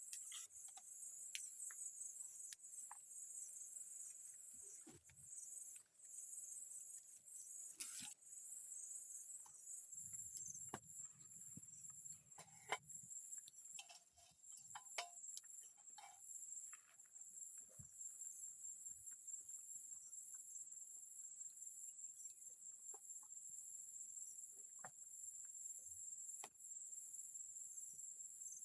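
Steady high-pitched chorus of insects trilling in the countryside, with scattered light clicks and rustles and a few short animal calls about halfway through.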